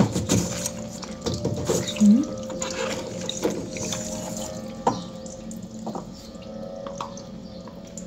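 Water trickling and dripping out of a front-loading washing machine's drain-pump filter housing as the filter cap is unscrewed, with a few sharp clicks and knocks of the plastic cap. This is the leftover water draining from the machine through the opened filter.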